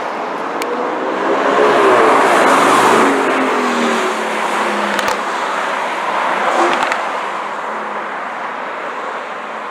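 Mercedes-AMG GT's twin-turbo V8 passing by, loudest about two seconds in, its engine note sliding down in pitch as the car drives away, leaving a steadier hum of engines and traffic.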